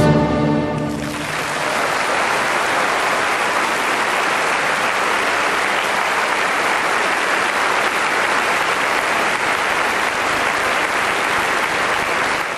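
The last chord of the orchestra and choir ends about a second in, and a large concert audience applauds steadily.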